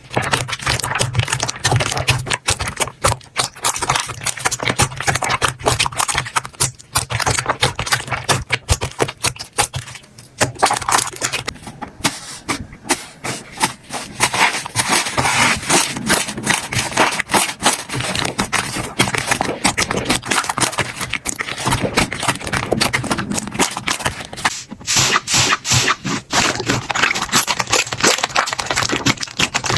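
Slime being squeezed, poked and stretched by hand, giving a dense run of wet clicks, pops and crackles. The sound changes character about 25 seconds in, as a different slime is handled.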